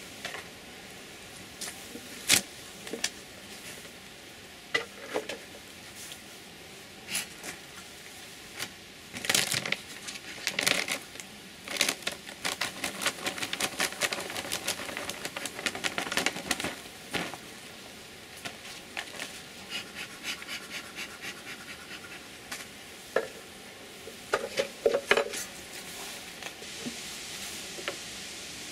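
A wooden beehive being opened and worked: sharp knocks and clicks of the wooden box and frames, a stretch of dense crackling as the cover cloth is peeled off the frame tops, and a metal hive tool scraping and prying at the frames near the end.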